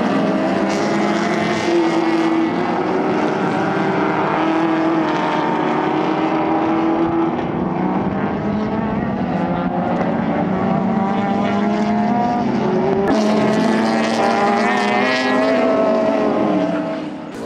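Several racing car engines at high revs as a pack of cars races past, their pitch rising and falling with gear changes. After a cut about 13 seconds in, the Ford Escort's Cosworth four-cylinder race engine pulls hard on its own, its pitch rising as it accelerates.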